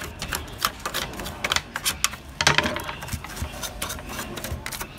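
A small stiff-bristled brush scrubbing dust off a laser printer's circuit boards and sheet-metal chassis: a quick, irregular run of scratchy strokes and light clicks.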